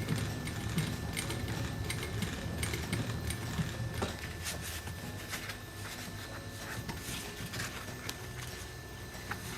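Cowboy 7618 walking-foot upholstery sewing machine, driven by a servo motor, stitching in short irregular runs: a low steady hum with the needle and feed clicking.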